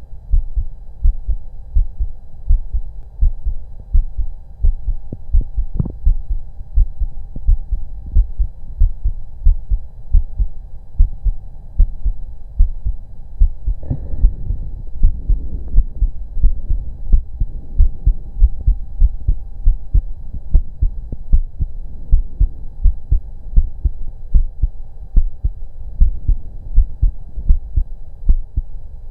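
A human heartbeat heard through a stethoscope on the chest: a steady, fast rhythm of low thumps over a faint hum, with one brief louder noise about halfway through.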